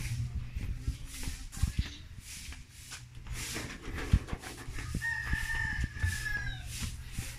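A rooster crows once, a long held call about five seconds in that sags slightly at the end. Before it, footsteps knock on wooden walkway boards, the sharpest knock about four seconds in.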